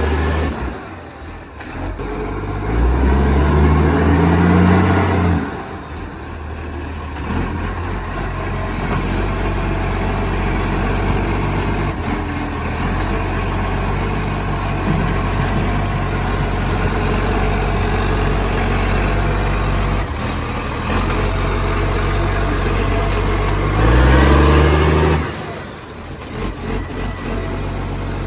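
Acco garbage truck's diesel engine, very loud through a massive exhaust leak. It revs up twice, about three seconds in and again near the end, and runs steadily with a thin high whine above it in between.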